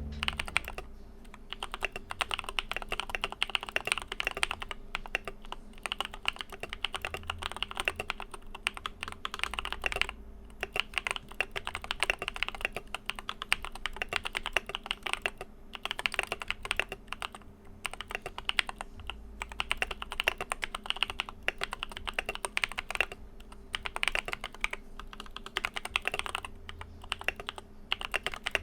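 Typing on an ID80v1 mechanical keyboard with lubed Durock Sunflower POM tactile switches and SA keycaps, after the PE foam and tape mods meant to remove its hollow sound: a continuous flurry of keystrokes with a few short pauses. A fan hums steadily underneath.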